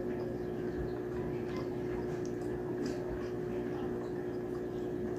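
Faint wet chewing and lip-smacking of braised pork belly eaten by hand, heard as scattered soft ticks over a steady background hum.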